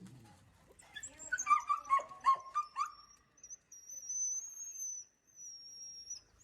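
Animal calls: a quick run of short, high yips or chirps, then one long, thin, high whistle that wavers slightly.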